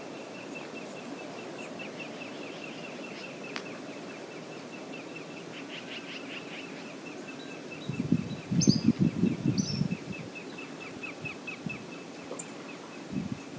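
Steady rush of river water with a rapid, even run of high bird chirps over it, and two short higher calls near the middle. For about two seconds past the middle, loud low rumbling noise rises over the river, with a shorter burst near the end.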